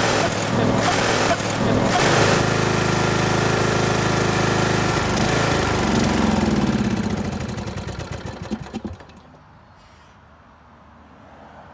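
Briggs & Stratton 14.5 hp OHV single-cylinder engine on a riding mower running steadily, then sputtering unevenly and dying out about eight or nine seconds in. It stalls from fuel starvation, with the fuel cap's vent hole blocked.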